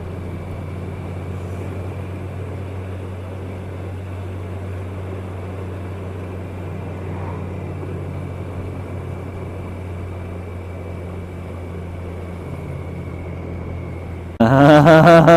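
Kawasaki ER-6n's parallel-twin engine running steadily at low revs, heard from the rider's helmet camera. About a second before the end, a loud, wavering pitched sound cuts in over it.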